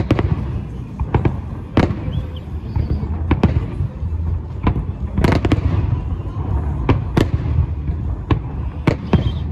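Aerial fireworks shells bursting in a salute display: a run of sharp bangs at irregular intervals, about one or two a second, over a steady low rumble, with the heaviest burst about halfway through.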